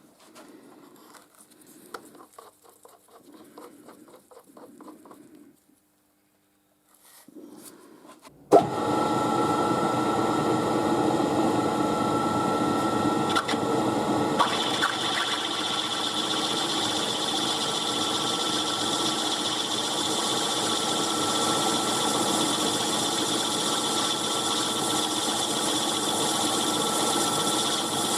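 Milling machine switched on about a third of the way in, starting with a sudden jump, then running steadily with a whine while it drills a hole in a brass bracket; a higher whine joins about halfway through. Before it starts, only faint handling sounds.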